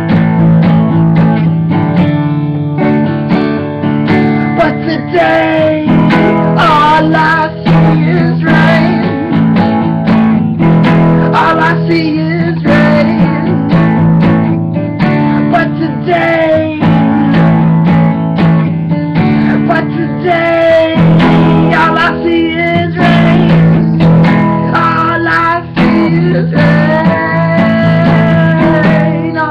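Acoustic guitar strummed steadily, with a man's singing voice coming in over it at times.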